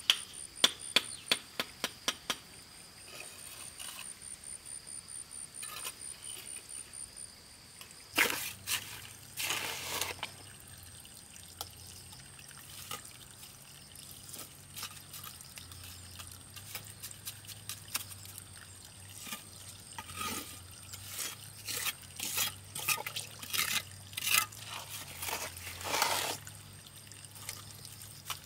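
A steel trowel working wet cement mortar on brick: first a quick series of sharp taps as bricks are set, then wet slapping and scraping strokes as mortar is spread over the brick wall, in bursts. Insects trill steadily during the first third.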